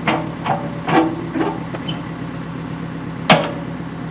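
Caterpillar 430D backhoe's diesel engine idling steadily while its quick coupler is worked open with the release tool: several metal clanks in the first second and a half, then one sharp, loud clank a little over three seconds in.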